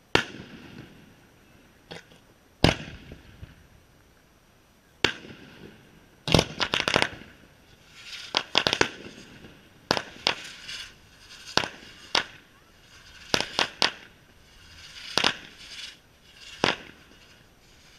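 Fireworks display: aerial shells bursting in a run of sharp bangs every second or two, some in quick clusters of two or three, several followed by a brief crackle.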